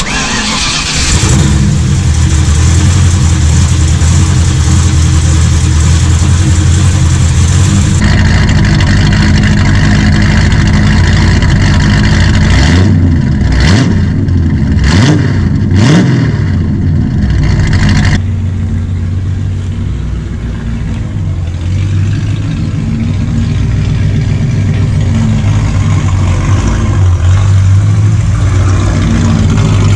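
Ford 302 small-block V8 of a 1979 Ford Galaxie 500, carburetted and fitted with a crossflow exhaust, running. It idles steadily, blips through a few quick revs about halfway through, then settles back to idle and rises again near the end as the car pulls away.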